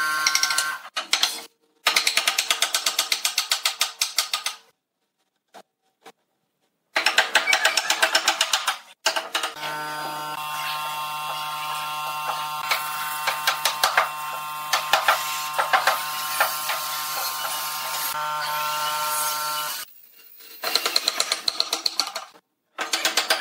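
A wooden mallet tapping pine tenons into their mortises, in quick runs of many light knocks.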